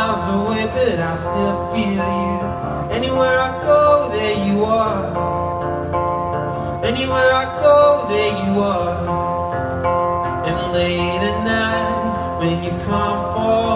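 A live acoustic song: a strummed acoustic guitar with a man singing over it.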